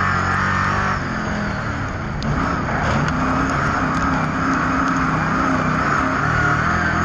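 Speedway race car engines running hard, easing off about a second in and picking up again about two seconds in.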